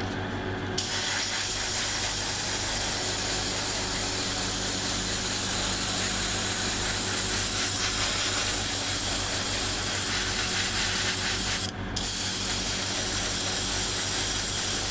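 Airbrush spraying paint in a steady hiss that starts about a second in and stops briefly near twelve seconds in before resuming.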